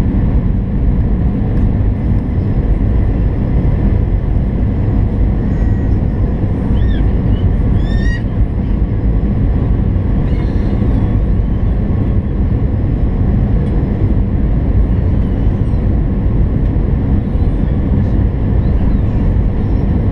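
Steady airliner cabin noise inside an Airbus A319 on landing approach: a constant low rumble of the jet engines and rushing air, heard at a window seat beside the wing.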